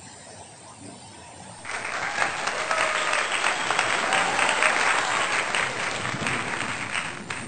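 Crowd applause, many hands clapping, starting suddenly a little under two seconds in and cutting off sharply just before the end, over a steady low outdoor background.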